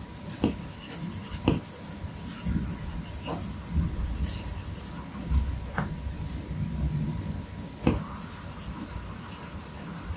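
Apple Pencil's plastic tip stroking and rubbing across an iPad Pro's glass screen during shading, with a few sharp taps of the tip on the glass, the loudest about a second and a half in and near eight seconds.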